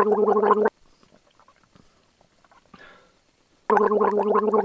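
A man gargling water: a steady low voiced note bubbling rapidly through water held in the mouth. One gargle cuts off under a second in, and a second starts near the end, with near quiet between.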